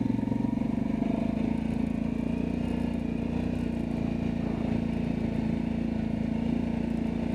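ATV engine running steadily at an even pitch, neither revving up nor dying away.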